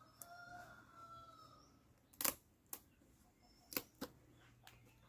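Sharp crackles and clicks of a dry areca palm leaf sheath being folded and pinned with a thin stick: one loud crack about two seconds in, then a few smaller ones. A rooster crows faintly in the first second and a half.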